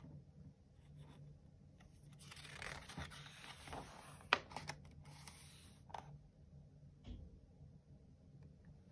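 A picture book's paper page turned by hand: a faint rustle of paper for a few seconds, with a sharp tap about four seconds in.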